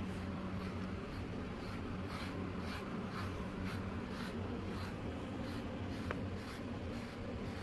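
Slicker brush raking through a cat's fur in steady, scratchy strokes, about two a second.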